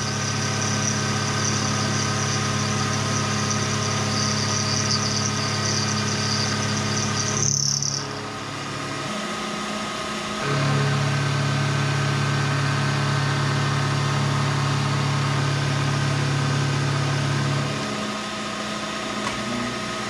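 Vertical knee milling machine running, with its spindle motor humming steadily while the cutter mills across a metal caster wedge; a high-pitched cutting tone sits over the hum for the first eight seconds or so. About ten seconds in a second, lower motor hum starts and runs until near eighteen seconds as the table moves the vise.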